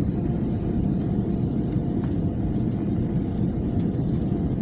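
Steady low roar of a passenger plane's engines and rushing air, heard inside the cabin, with a faint steady whine above it.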